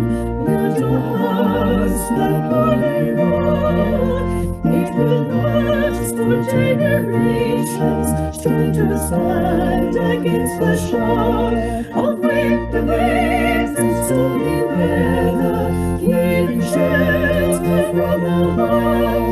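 A hymn being sung with vibrato over steady, sustained low accompaniment.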